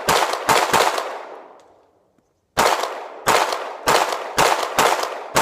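Hi-Point C9 9mm pistol fired nine times: three quick shots, a pause of about two seconds, then six more at a steady pace, each shot followed by a long echo trailing off. It is feeding from a Hi-Point carbine magazine and cycles every round without a jam.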